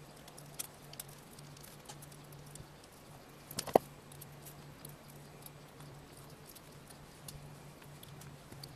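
Small clicks and scratches from needle-nose pliers working on a mini DC fan's plastic hub and circuit board, with one sharper click about three and a half seconds in, over a steady low hum.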